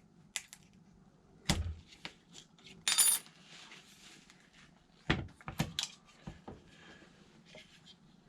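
Parts and tools being handled on a workbench: a few scattered knocks and taps, one duller thud, and a short metallic clink about three seconds in.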